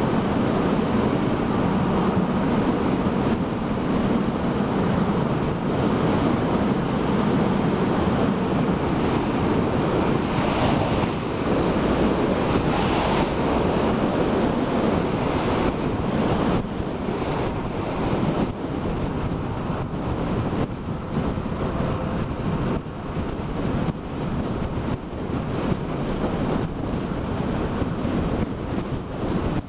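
Wind rushing over a helmet-mounted camera's microphone as a Yamaha XSR700 motorcycle rides at road speed: a loud, steady roar that turns a little more uneven in the second half.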